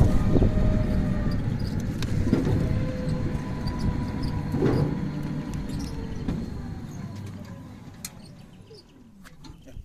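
STMAX three-wheeled electric motorcycle rolling on a rough lane: low tyre-and-road rumble with a faint electric motor whine that slowly falls in pitch, the whole fading as the bike slows to a stop. A few small clicks near the end.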